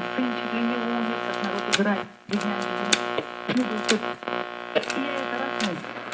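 1968-69 Buick Delco Sonomatic AM push-button car radio playing with a steady loud hum under faint station voices, while its push buttons are pressed, giving sharp clicks about five times and a brief cut-out of the audio about two seconds in; the buttons are sticky and need cleaning inside.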